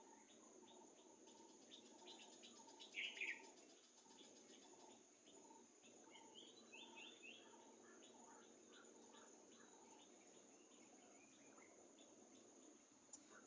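Faint forest ambience: birds calling in short repeated chirps over a steady high insect drone, with a louder burst of bird calls about three seconds in.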